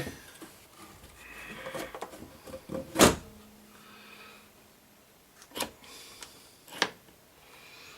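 Knocks and clicks of record player deck parts being handled, with one sharp, loud click about three seconds in and two lighter clicks later.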